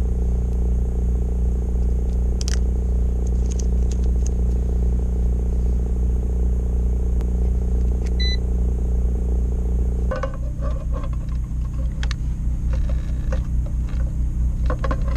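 A steady low motor hum, with light rattling of the clamp meter and its packaging being handled and one short electronic beep from the meter about eight seconds in. About ten seconds in the hum changes to a quick pulsing throb, with more clicks and rattles.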